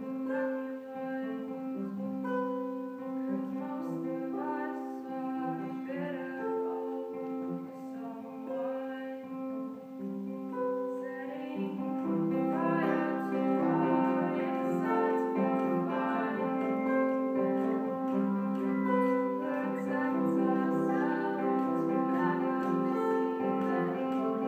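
An ensemble plays music with held notes in several parts. About halfway through it grows fuller and louder.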